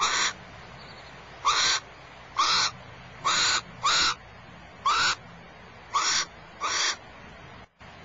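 Barn owl giving short, harsh screeching calls, about one a second, eight in all.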